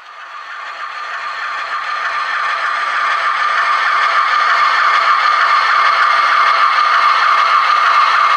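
Model train locomotive (Atlas GE U36C) running: a whirring, rattling motor and gear drive that grows louder over the first few seconds, then holds steady.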